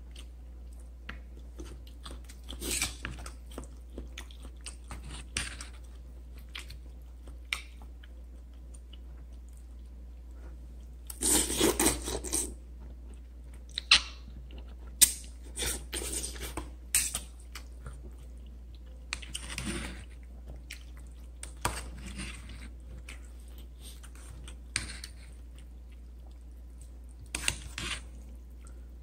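A person eating Korean instant noodles close to the microphone: quiet chewing broken by loud slurps of noodles, the longest a little over ten seconds in.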